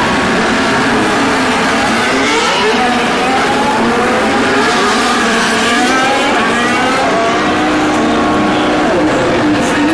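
Several Formula 1 cars' turbocharged V6 hybrid engines accelerating hard from practice starts. Their overlapping notes climb in pitch, drop at each gear change and climb again.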